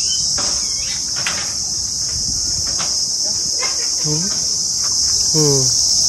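Loud, steady high-pitched chirring of crickets. A few short sharp sounds and two brief calls falling in pitch come through about four and five seconds in.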